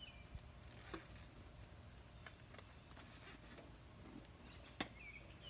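Near silence with a few soft knocks and rubs as a motorcycle seat is worked down into place, the sharpest knock about five seconds in.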